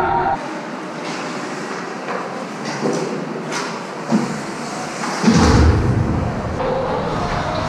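Ice hockey play on a rink heard close to the goal net: scattered sharp clicks and knocks from sticks, puck and skates, with one heavy thump just past five seconds in.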